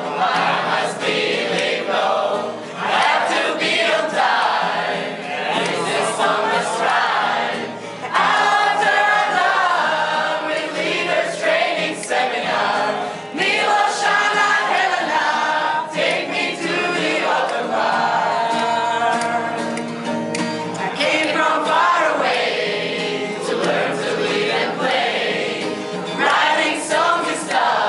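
A group of young men and women singing a song together in chorus, their voices mixed in one loud, continuous sung line.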